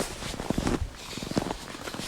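Footsteps crunching in snow: two steps in an unhurried walking rhythm, each a short cluster of crackling crunches.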